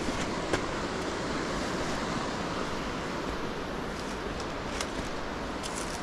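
Steady rushing of a waterfall, with a few faint clicks.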